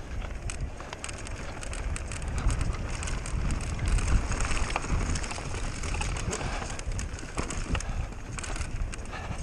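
Mountain bike descending fast on a rough trail: wind buffeting the onboard camera's microphone over tyre noise and a constant rattle of clacks from the bike and stones, a little louder from about two seconds in.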